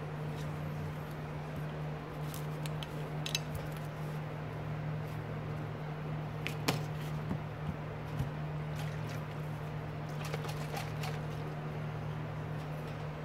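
Electrical cords and a metal alligator clip being handled on a bench: light rustling and scattered small clicks over a steady low hum.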